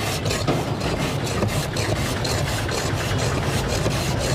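A block of ice pushed back and forth by hand across the blade of a wooden ice-shaving box, shaving ice for a shaved-ice dessert. The scrapes are rasping, about three strokes a second, over a steady low hum.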